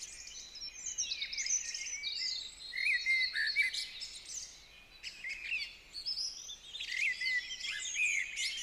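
Several songbirds chirping and twittering together in a forest morning chorus, with many overlapping short calls and a brief lull a little before the middle.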